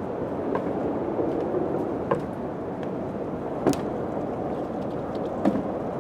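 Steady wind noise with scattered sharp clicks and taps, the loudest about two seconds, three and a half seconds and five and a half seconds in.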